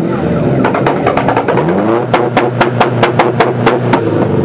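Modified Proton Satria engine being revved, its pitch climbing and falling, with a rapid run of sharp cracks, about five a second, for a couple of seconds in the middle.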